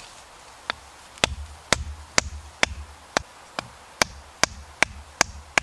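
A sheath knife being knocked down into the cut end of a green wood stick to split it: a run of about a dozen sharp wooden knocks, roughly two a second, starting under a second in.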